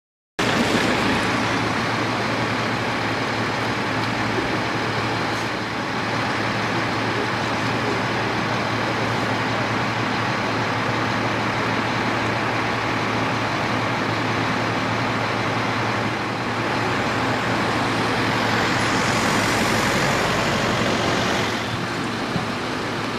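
Steady traffic and engine noise from vehicles idling and passing on a wet road, with a low steady engine hum underneath. A louder hiss swells up for a few seconds near the end.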